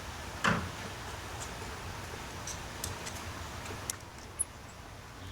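A few faint, irregular clicks and taps from a screwdriver and small screws being handled at a door's striker plate. The clearest tap comes about half a second in, over a low steady hum.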